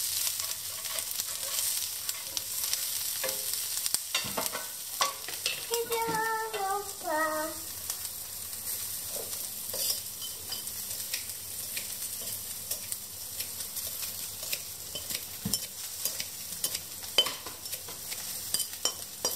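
Asparagus pieces frying in butter in a pan, sizzling steadily, with a few short clicks and scrapes. A child's high voice sounds briefly about six seconds in.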